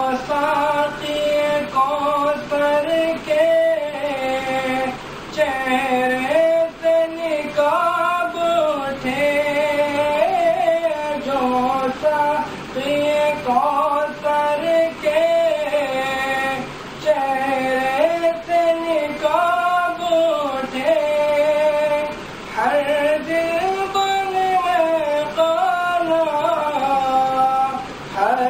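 A man singing a naat, a devotional song in praise of the Prophet Muhammad, solo and without instruments, in a fairly high voice. He sings long, ornamented phrases of a few seconds each, with short breaths between them.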